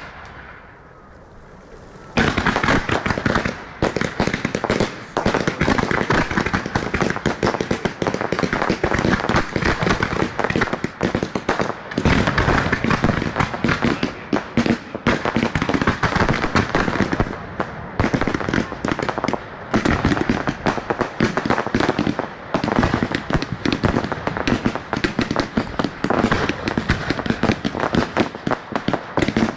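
Fireworks display: after a short lull, a dense barrage of rapid bangs and crackles sets in about two seconds in and keeps going without a break.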